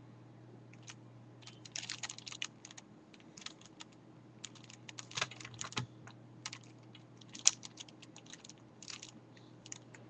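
A plastic 5x5 Rubik's cube being turned by hand: irregular clusters of light clicks and clacks as its layers rotate, with one sharper clack about three quarters of the way through.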